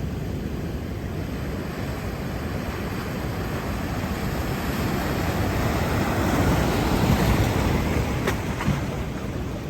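Rough surf breaking, with wind buffeting the microphone; the noise swells to its loudest about six to eight seconds in, then eases.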